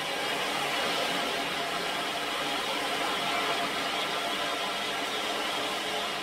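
Ocean drum: beads rolling across the inside of the frame drum's head in a steady wash of noise that swells slightly about halfway through.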